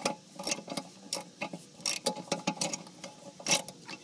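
Socket ratchet clicking in short, irregular runs as the gas line fitting on an RV water heater is tightened.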